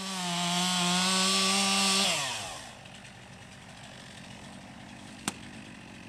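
Chainsaw running at full throttle with a steady high engine note, then winding down in pitch about two seconds in as the throttle is released and falling to a quiet low run. A single sharp click near the end.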